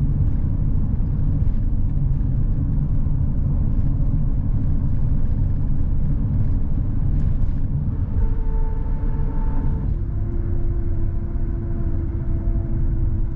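Steady low rumble of tyre and road noise from a vehicle cruising at highway speed, heard from inside the cab. A faint steady whine comes in about eight seconds in and drops to a lower pitch about two seconds later.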